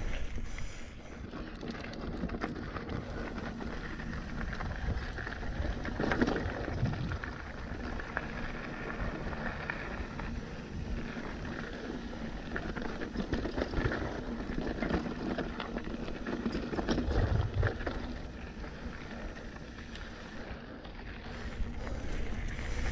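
Trek Remedy mountain bike rolling over a rocky dirt trail: tyres crunching over gravel and stones with frequent rattles and knocks over bumps, and wind buffeting the microphone.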